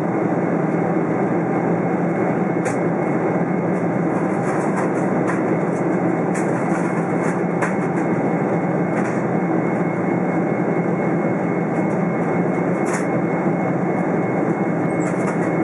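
Steady cabin noise of a Boeing 747-400 in flight: its jet engines and the airflow heard from inside the cabin, with a few faint high ticks.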